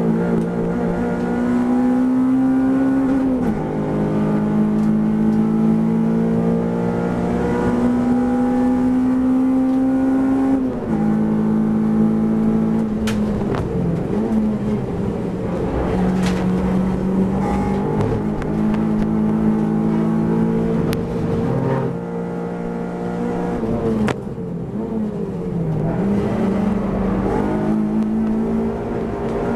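Onboard engine note of a Honda Civic race car under hard acceleration. The pitch climbs through each gear and drops at the upshifts, then falls away under braking with downshifts before rising again near the end. It is heard from inside the cabin.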